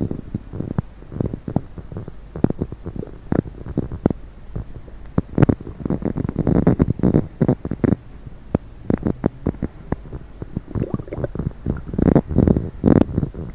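Human stomach gurgling after coffee and Diet Coke: irregular bubbling rumbles and quick pops, busiest about six to eight seconds in and again near the end.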